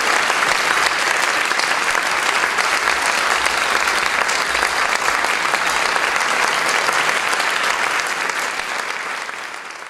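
Audience applauding, a dense steady clapping that fades away over the last couple of seconds.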